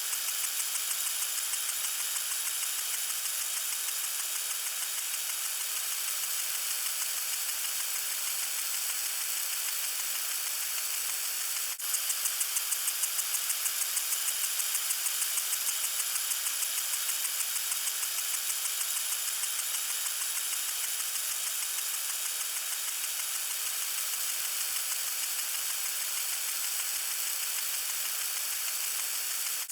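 Lawn sprinkler spraying water: a steady hiss with an even, regular pulsing, which briefly drops out about twelve seconds in.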